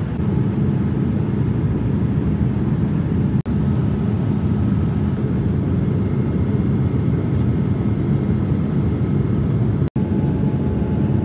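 Steady low cabin noise of a Boeing 787-10 airliner in flight. It drops out for an instant twice, at edit cuts.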